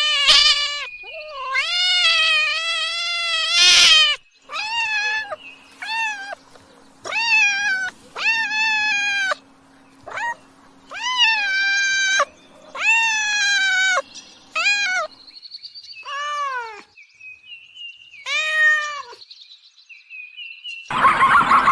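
A domestic cat meowing again and again, about a dozen meows with short pauses between them; some are brief and some are long and drawn out. Just before the end a different, harsher noisy sound starts.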